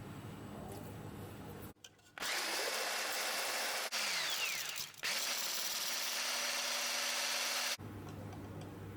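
Electric hand mixer running, whipping egg whites. It starts about two seconds in, cuts out briefly twice and stops sharply near the end.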